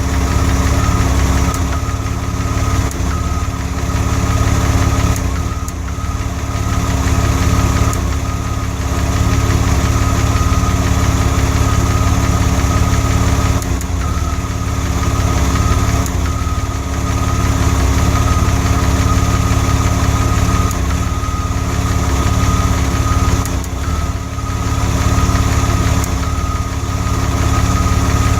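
DeLorean DMC-12's PRV V6 engine idling with an occasional misfire: the steady idle stumbles briefly every few seconds.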